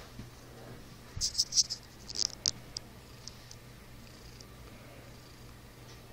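Long-haired tabby cat purring steadily, a continuous low rumble. About one to three seconds in, a quick run of sharp scratchy rustles, the loudest sounds here.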